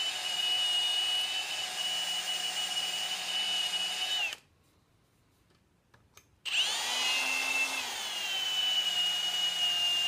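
Electric drill running with a steady whine as its bit drills out a copper rivet in a stainless steel armor plate. The motor cuts out about four seconds in and starts up again about two seconds later.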